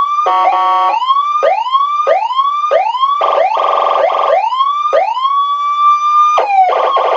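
Electronic siren module sounding a fast rising whoop tone, about two sweeps a second, broken three times by a harsh buzzy interrupt horn. Near the end one sweep rises and holds, then drops suddenly just before the last horn blast.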